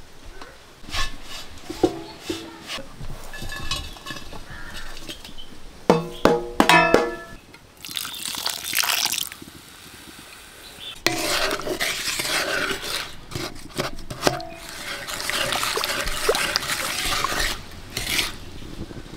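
Jaggery syrup in an aluminium kadai, hissing and bubbling in long stretches over the fire, with a few knocks from the pan and utensils earlier on.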